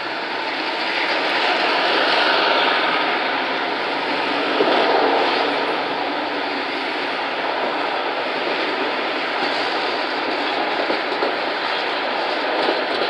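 Street traffic at a wide intersection as a low-floor tram rolls across: a steady rush of tyres and engines that swells twice in the first half, with a few small clicks near the end.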